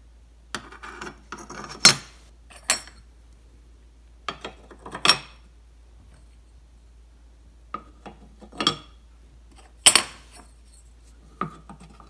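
Metal burner rings and caps of a gas cooktop being set back onto the burner bases: a scattered series of sharp clinks and light knocks, about eight in all, the loudest near 2 s and 10 s, a few ringing briefly.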